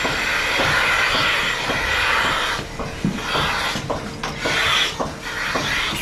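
Milking machine vacuum hissing as air is drawn in through a milker unit's teat cups while it is put on a cow. The hiss breaks off briefly about two and a half seconds in and comes in shorter spells after that, over a faint steady hum and light clicking.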